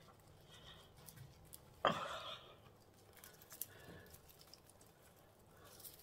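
Hands pressing and rustling loose potting soil and dry plant leaves: soft scattered crackles and rustles, with one sudden louder sound about two seconds in that fades over half a second and a sharp tick about two seconds later.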